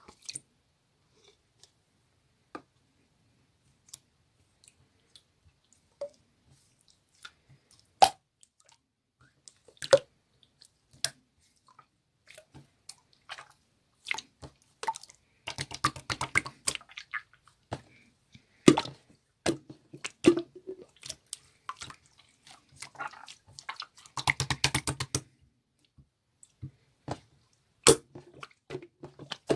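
Clear slime being handled: scattered sticky clicks and pops, then two dense runs of wet, bubbly crackling about halfway through and again near the end as it is squeezed and pressed.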